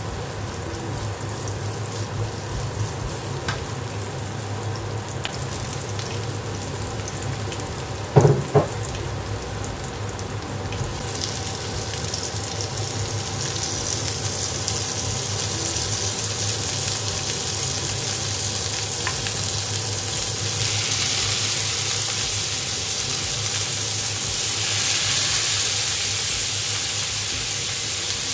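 Sliced onions frying in hot oil in a nonstick pan, with a steady sizzle as they are stirred with a wooden spatula. About eleven seconds in, pieces of bone-in meat go into the pan and the sizzling turns louder and hissier, swelling again near the end. Two brief loud knocks about eight seconds in.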